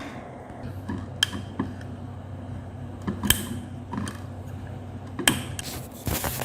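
Small clicks and taps of plastic parts being handled while a cable is wired into a lamp socket, with a few sharper clicks spread through and a scraping rustle near the end, over a steady low hum.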